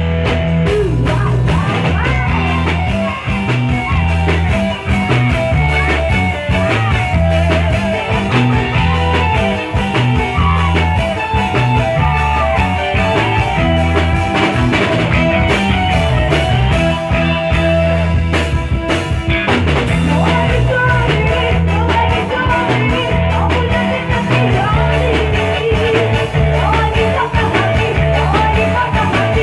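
Live band music: two female singers singing over electric guitar and keyboard, with a steady, repeating bass beat.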